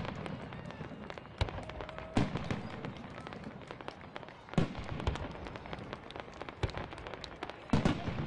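Fireworks display: aerial shells bursting with several sharp booms, the loudest about 2 s in, about 4.5 s in and near the end, over continuous crackling.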